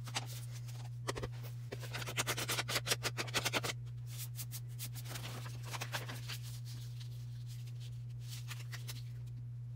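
Paper being handled, then a quick run of dabs of a foam ink blending tool on an ink pad, about six a second for under two seconds, followed by softer rubbing and handling. A steady low hum lies underneath.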